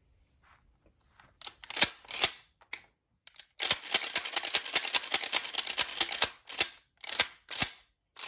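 Remington Model 17 20-gauge pump-action shotgun being worked by hand, its slide and action clacking back and forth. A few single clacks open, a dense run of rapid clicking fills the middle for about three seconds, and more single clacks follow. The action is freshly cleaned and well oiled and cycles smoothly.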